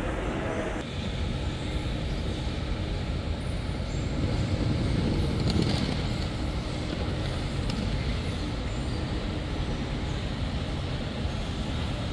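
Steady traffic rumble from the airport roads, with a swell about four to six seconds in.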